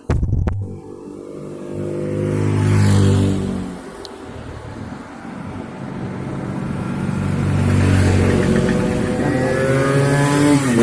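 Motor vehicle engines running close by, growing louder about three seconds in and again about eight seconds in, with a sharp knock right at the start.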